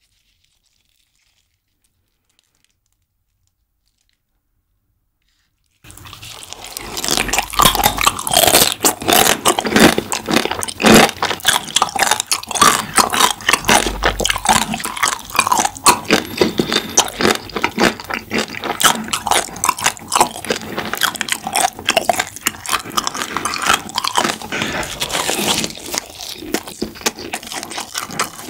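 After about six seconds of silence, close-miked crunching, biting and chewing: spicy marinated raw crab (yangnyeom gejang) being eaten, with many sharp irregular crunches.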